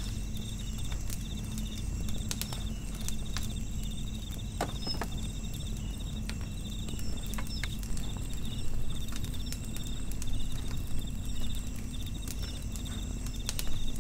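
Wood fire crackling in a portable fire pit, with sharp pops scattered irregularly over a low steady rumble. Behind it, night insects chirp in a fast, even, high-pitched pulse.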